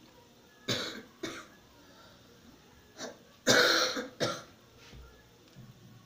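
A person coughing off-camera: two short coughs about a second in, then a louder run of coughs between about three and four seconds in.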